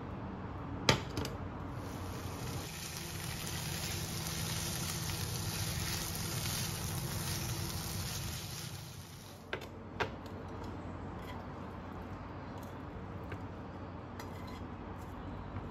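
A pan knocks once, then noodles sizzle in a hot frying pan with a steady hiss for about seven seconds while chopsticks stir them. The hiss stops, two knocks follow, and then light clicks and scrapes of chopsticks against the pan as the noodles are pushed out into a bowl.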